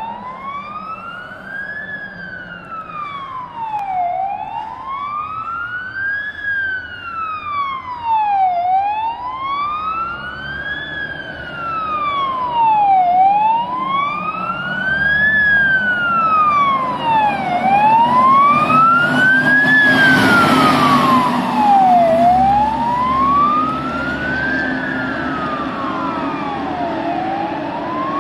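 Scania P410 fire engine's siren sounding a slow wail, rising and falling about every four and a half seconds, as the truck approaches on an emergency run. About twenty seconds in, its diesel engine and tyres swell as it passes close, then fade as it moves away with the siren still wailing.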